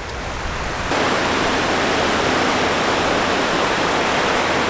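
Ocean surf breaking on the beach, a steady rushing noise that abruptly gets louder about a second in.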